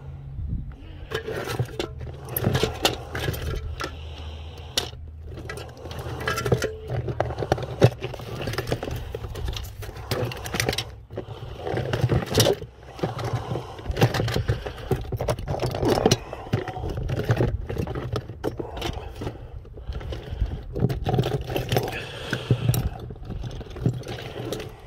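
Close handling noise of hard plastic toys: a toy horse and figures turned and rubbed in the hands right at the microphone, making an irregular run of scrapes, clicks and knocks over a low rumble.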